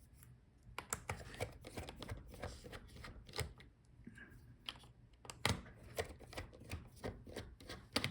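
Scattered light clicks and taps of a screwdriver and metal parts as the hinge screws of a Dell Latitude 5410 laptop are undone, with a couple of louder knocks about five and a half seconds in and near the end.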